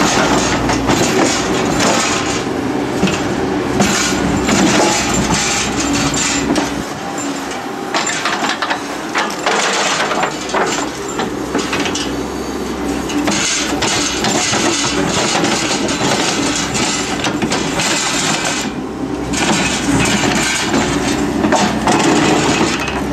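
Hydraulic excavator digging into rocky soil: its diesel engine runs steadily under many irregular scraping and cracking knocks as the bucket tears through rock and dirt.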